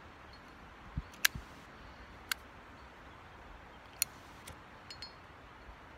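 Handheld lighter clicked again and again at uneven intervals, with a couple of soft knocks about a second in. The flame is not catching the oil-soaked tissue in the wind. Steady wind hiss runs underneath.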